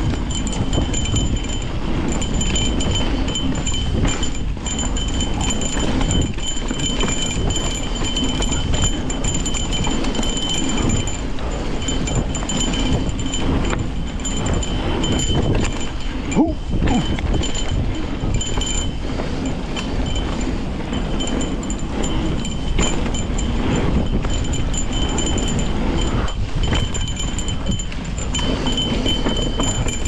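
Full-suspension mountain bike rattling down a rough dirt trail: tyres, chain and frame clattering over roots and rocks, with a steady high ringing that comes and goes and a sharp knock about sixteen seconds in.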